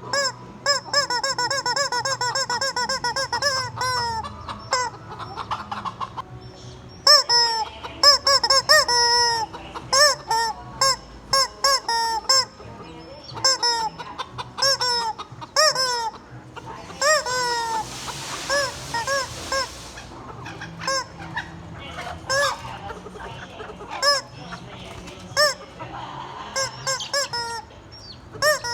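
Squeaky rubber chicken toy honking in short repeated squawks, first in a fast steady run and then in scattered bursts, with real chickens around it. A brief hiss comes about two-thirds of the way through.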